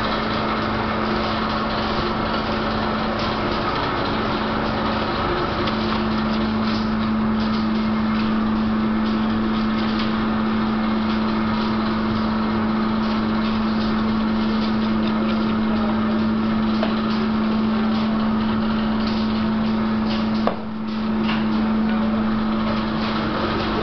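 Fishing boat's engine running steadily with a constant hum, with scattered light knocks and clicks from work on deck and one sharper knock about twenty seconds in.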